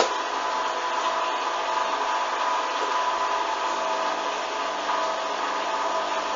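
Hoover washing machine in its final spin, its motor giving a steady whine over the rushing of the drum. A single sharp click right at the start.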